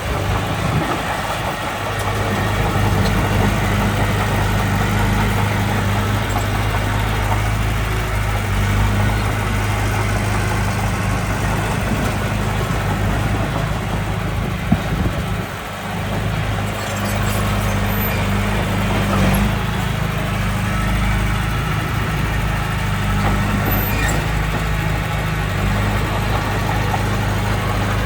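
Diesel engine of heavy earthmoving machinery running steadily with a low, even hum. The sound dips briefly about halfway through.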